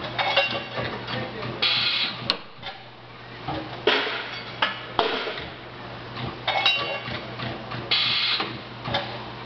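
300 kVA automatic brake-shoe seam welding machine running through its cycle. Short bursts of hissing crackle come as the copper wheel electrode welds, mixed with sharp clanks and clicks from the clamps and slides. The pattern repeats about every six seconds over a steady low hum.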